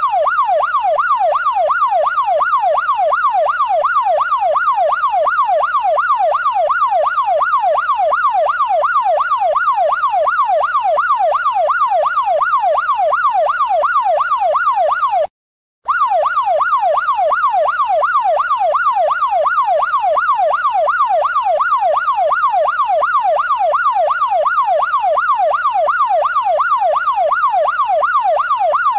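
Electronic police siren on the fast yelp setting, its wail sweeping rapidly up and down about three times a second. It cuts out for about half a second roughly halfway through, then carries on.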